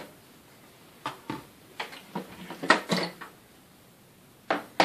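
Hard plastic clicks and knocks, a handful of short separate sounds, as the stiff onboard attachment compartment of a Panasonic MC-CG917 canister vacuum is eased open against resistance.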